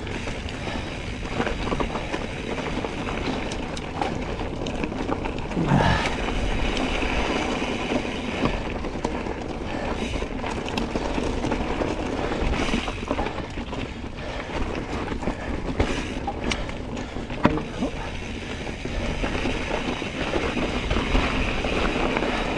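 Santa Cruz Tallboy mountain bike ridden over rocky trail: a steady rumble of tyres on rock and wind on the microphone, with scattered knocks and clatters from the bike over rough ground.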